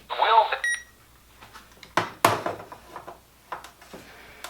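The last words of an alert voice through a small speaker break off less than a second in with a short electronic beep from an emergency alert receiver, then several sharp clicks and knocks, the loudest about two seconds in, as its buttons are pressed to acknowledge the alert.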